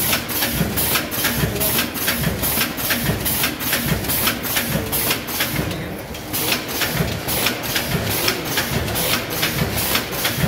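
VFFS snack packaging machine with multihead weigher running, a fast regular clatter with a hiss on each stroke, about three strokes a second over a low machine hum. The rhythm breaks briefly about six seconds in, then picks up again.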